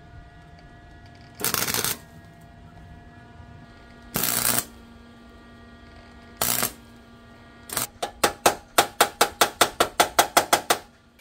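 Wire-feed welder tacking a steel patch onto the corner of a jeep door: three short crackling tacks a couple of seconds apart, then a fast string of short welds, about six a second, in the last three seconds. A steady hum runs underneath them.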